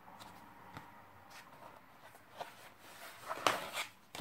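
Sheets of scrapbooking paper and cardstock circles being handled, soft rustling and sliding with a few light clicks, and a louder rustle about three and a half seconds in.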